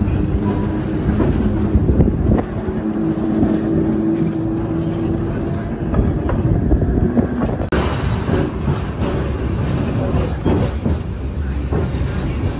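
Streetcar running along its rails: a steady rumble and rattle, with a hum held for a few seconds a couple of seconds in and a few knocks later on.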